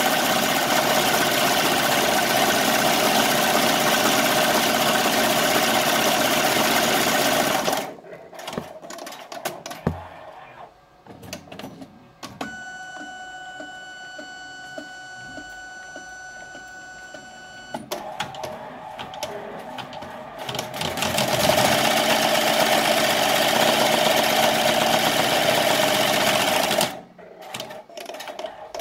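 Multi-needle embroidery machine stitching at speed. It stops after about eight seconds and, during a colour change, makes scattered clicks and a steady high whine. It then stitches again for about six seconds before stopping near the end.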